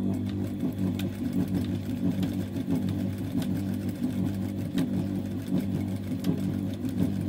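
Typical industrial lockstitch sewing machine running as denim is stitched back and forth in machine darning. Its motor hum is steady, its speed rises and falls, and it gives off a stream of quick needle clicks.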